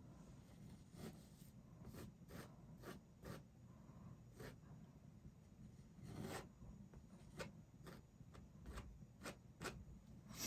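Faint, irregular scratchy strokes of a paintbrush on canvas, one or two a second, with a longer stroke about six seconds in.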